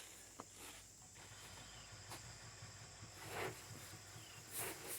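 Faint rustling and swishing of a hay-packed hay net and binder twine being handled as the net is cinched up and tied off, with a small click about half a second in.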